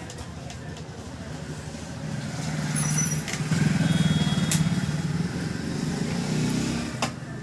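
Low engine rumble of a passing motor vehicle, building over a couple of seconds, loudest around the middle, then easing off, with a few sharp clicks.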